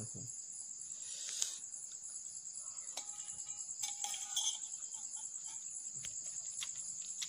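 Crickets chirring steadily in a high-pitched, rapidly pulsing trill, with a few faint clicks and smacks of chewing.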